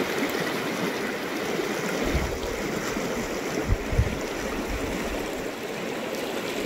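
Fast-flowing river rushing steadily over a gravel bed, with a few brief low bumps about two and four seconds in.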